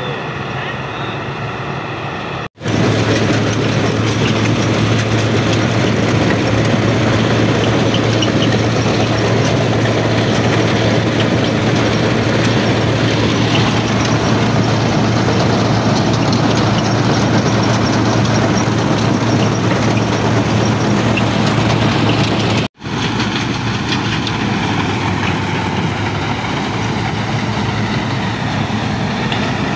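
New Holland 8080 combine harvester running while it cuts and threshes rice: a loud, steady din of engine and machinery with a constant low hum. The sound cuts out briefly twice, about two and a half seconds in and again near twenty-three seconds, and is loudest between these breaks.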